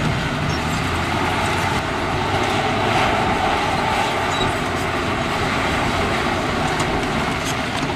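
Mining dump truck tipping its load of rock: a steady, noisy rush of rock pouring out, with scattered clicks and rattles of stones.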